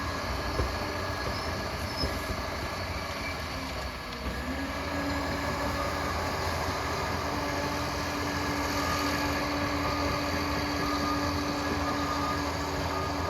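Liebherr PR 746 crawler dozer running at work: a steady diesel drone with a whine that dips, then rises about four seconds in and holds, and a few light knocks in the first couple of seconds.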